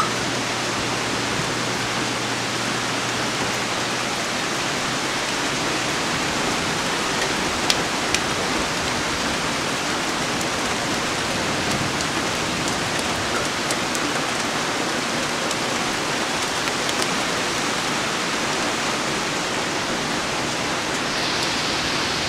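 Steady heavy rain from a thunderstorm, an even hiss, with a couple of sharp ticks about eight seconds in.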